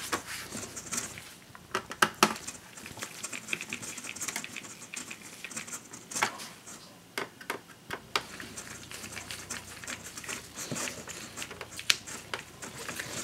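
Light, scattered clicks and taps of a laptop's plastic bottom access panel being pressed into place and its small screws driven in with a mini Phillips screwdriver.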